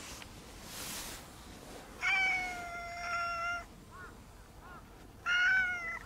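Brown tabby-and-white cat meowing: two long, drawn-out meows, the first starting about two seconds in and lasting about a second and a half, the second shorter and dropping slightly in pitch near the end.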